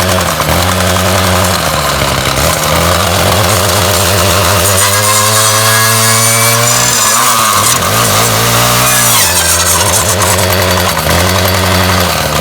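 Ryobi 705r 31cc two-stroke trimmer engine running, revved up several times and dropping back toward idle between revs.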